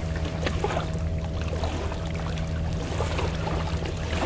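Steady, low engine drone of a boat on the river, with a few faint clicks over it.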